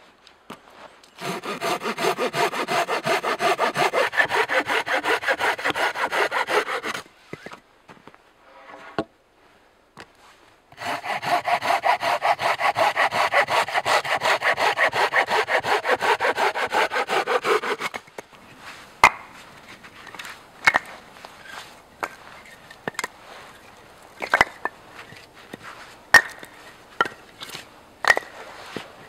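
Hand saw cutting through a thin branch with quick, even back-and-forth strokes, in two bouts separated by a short pause. Afterwards come several separate sharp wooden knocks as the cut lengths of firewood are picked up and clack together.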